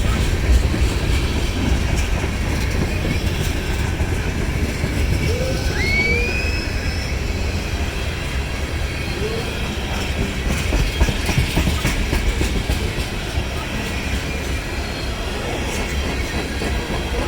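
Freight cars of a long freight train rolling past, a steady low rumble of wheels on the rails. About six seconds in there is one brief rising squeal.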